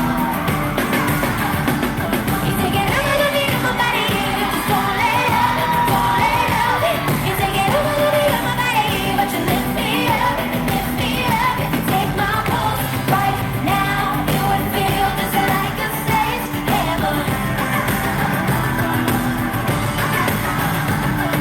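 A pop song performed live: a girl group's female vocals sung over a loud band backing.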